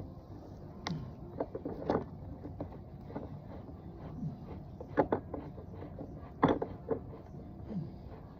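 A hand screwdriver working a tight screw into a grab bar's wall mount: scattered clicks and knocks of the tool and fittings, the strongest about two seconds in and again about five and six and a half seconds in.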